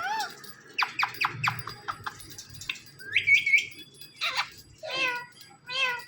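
Indian ringneck parakeet calling: a quick run of sharp chirps about a second in, a high warbling call around three seconds, then several short wavering calls toward the end.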